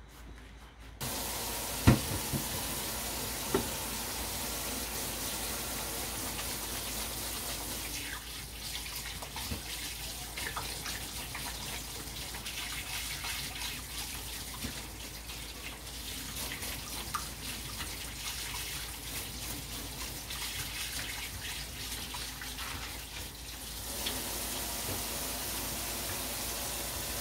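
Kitchen tap turned on and running into a sink, with a sharp knock about two seconds in. The flow sounds softer and more broken up through much of the middle, then steady again near the end.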